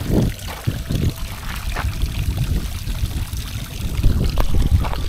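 Water of a tiered garden fountain trickling and splashing down into its pool, with a low uneven rumble underneath.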